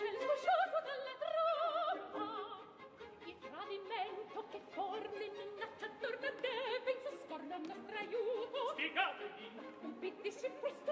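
Several operatic voices singing in Italian with wide vibrato over an orchestra, their lines overlapping and trading phrases.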